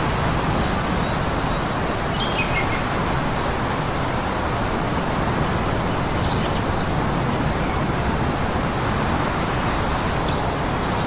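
Steady heavy blizzard wind blowing, with small birds chirping over it: a short falling series of chirps about two seconds in, a cluster of high chirps around the middle, and more near the end.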